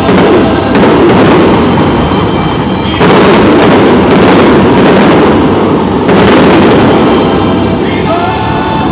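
Aerial firework shells bursting in a series of loud booms, about four of them a second or few apart, each followed by a long rolling echo.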